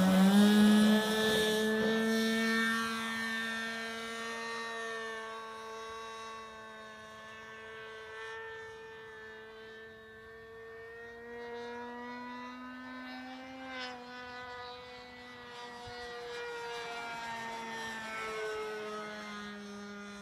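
Fun Fly radio-controlled model airplane's engine run up to full throttle for takeoff, its buzz rising in pitch at the start. It then fades as the plane climbs away, swelling and dropping in pitch and loudness as it flies past overhead.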